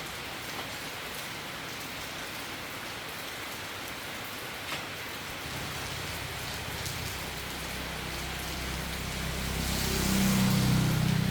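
Storm rain falling steadily on a surface. About halfway in, a low droning hum fades in underneath and grows louder toward the end.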